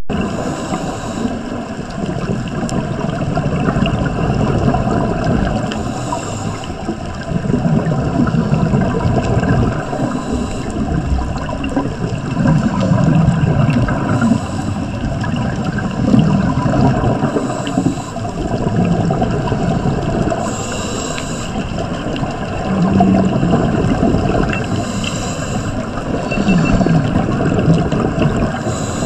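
Underwater sound picked up through a GoPro housing: a steady low gurgling rumble, with a scuba diver's regulator exhaust bubbles bursting out every few seconds.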